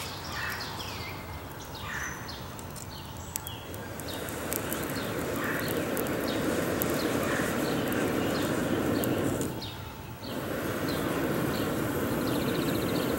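Steady rushing of breath blown through a collapsible fire-blowing tube onto the embers at the base of a small campfire, bringing the fire back to life. The blowing starts a few seconds in, breaks off briefly for a breath about ten seconds in, then goes on. Birds chirp in the background.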